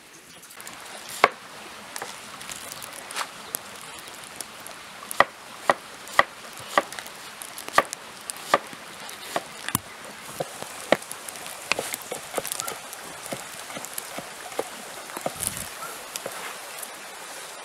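A cow grazing close to the microphone: sharp, irregular rips and crunches of grass being torn off and chewed, about one or two a second.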